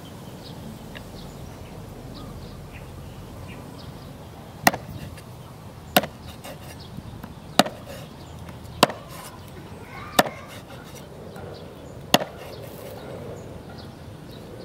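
Meat cleaver chopping skinned frogs into pieces on a wooden cutting board: six sharp chops at uneven intervals, starting about a third of the way in.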